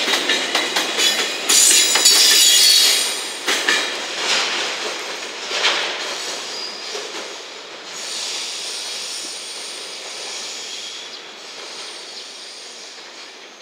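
Freight container flatcars rolling slowly past, wheels clicking over rail joints and squealing high, loudest about two seconds in, then fading as the train moves away.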